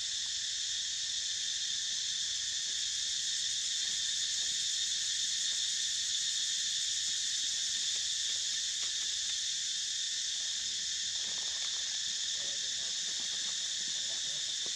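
Steady, high-pitched drone of a daytime insect chorus, unbroken and even in level.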